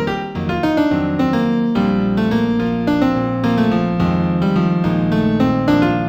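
Piano-toned keyboard playing a new-age piece in B minor: quick runs of notes over held low chords.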